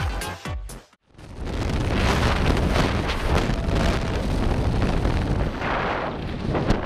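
Electronic dance music with a thumping beat that cuts off abruptly about a second in, followed by loud, steady wind buffeting a phone's microphone in tandem skydiving freefall as the parachute canopy opens.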